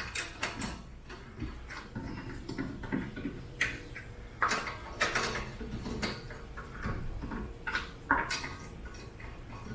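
Scattered metallic clinks, clicks and knocks of hand tools and suspension parts being handled, a dozen or so irregular taps with short pauses between.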